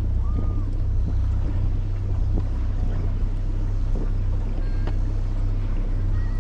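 Boat motor running on the lake, with heavy wind buffeting the microphone in a steady low rumble.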